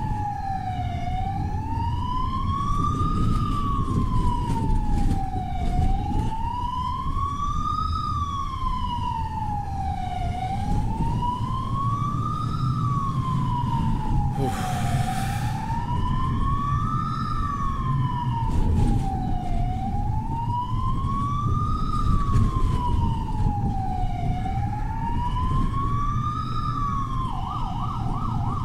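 Emergency vehicle siren wailing, sweeping slowly up and down about every five seconds, over the low engine and road rumble of a moving vehicle. There is a brief hiss about halfway through, and just before the end the siren switches to a fast yelp.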